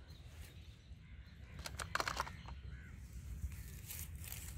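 Faint low rumble of wind on the microphone, with a brief scratchy sound about two seconds in.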